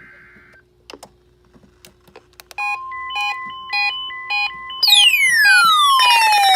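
Electronic alarm tones: a repeating pattern of short high beeps over a steady tone, then about five seconds in a loud tone sweeping steadily down in pitch, with harsh noise joining it near the end.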